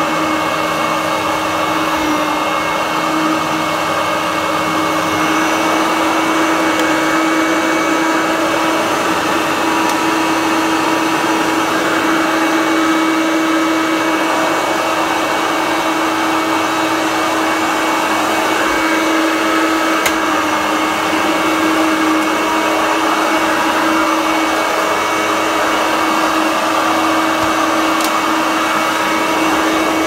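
Hoover Turbomaster upright vacuum cleaner running steadily while it is pushed across rugs and a wooden floor, an even motor drone with a held tone.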